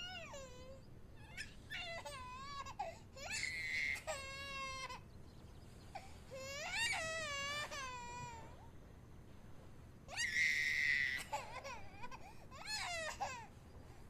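A baby crying: a string of drawn-out wails that rise and fall in pitch, some of them harsher and strained.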